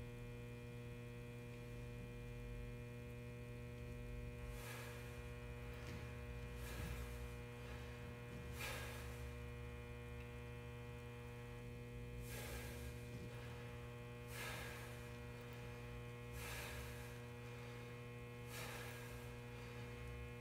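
Steady electrical hum running throughout, with a soft swish about every two seconds from a few seconds in.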